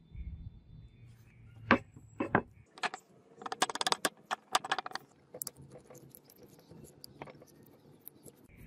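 Hands handling a wooden sword scabbard and steel blade: two sharp knocks about two seconds in, then a quick run of small clicks and taps that thins out to scattered ticks.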